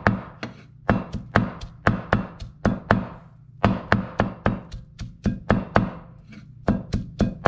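Cleaver mincing young tamarind leaves on a round wooden chopping board: sharp chops in quick runs of about three or four a second, with short pauses between runs.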